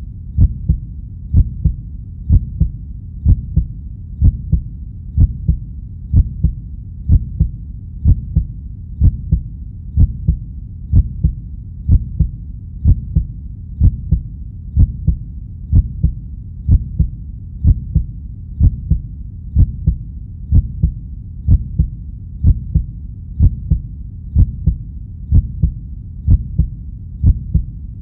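Heartbeat sound effect at a steady 62.5 beats per minute: a low double thump, lub-dub, about once a second over a steady low background noise.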